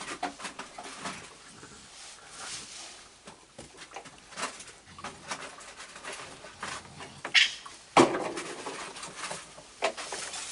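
Several raccoons eating cookies on a wooden deck: irregular crunching, clicks and scrabbling on the boards, with a louder thump about eight seconds in.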